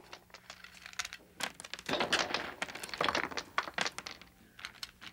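Irregular clicking and clattering with rustling noise, a quick run of many small sharp knocks, busiest in the middle.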